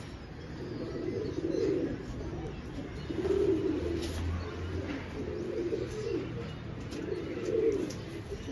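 Domestic pigeons cooing, a run of low, warbling coos repeating about once a second.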